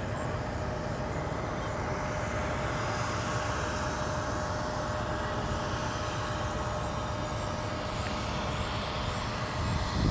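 Departing aircraft's engines heard from a distance: a steady rushing that builds through the middle, with a faint steady tone running through it.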